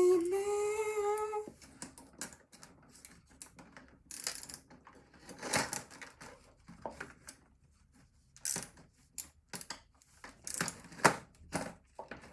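A held hummed note stops about a second and a half in, followed by irregular clicks and light clatter of small plastic and metal parts being handled during laptop disassembly.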